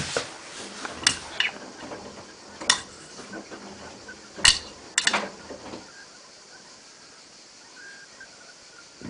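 Hotpoint-Ariston washing machine mid-wash, with irregular clinks and knocks, several in the first six seconds and the loudest about halfway, then a faint steady hiss.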